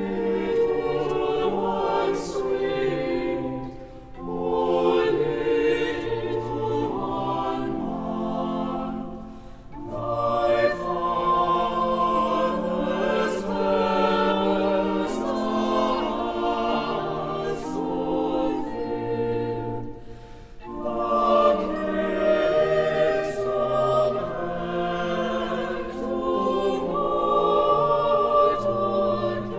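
Choir singing classical music with orchestral accompaniment. The singing comes in phrases, with three brief dips between them.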